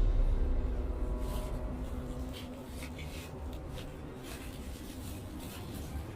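Scratchy rustling and scraping of packaging being handled, in short strokes every half second or so, while background music fades out at the start.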